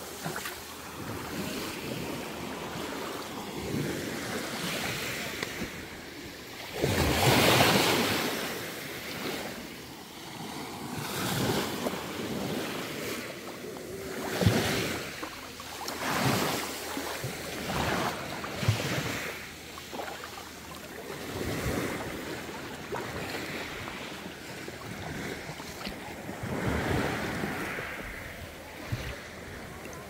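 Small waves washing onto a pebble shore, the surf swelling and falling back every couple of seconds, the loudest surge about seven to eight seconds in, with some wind buffeting the microphone.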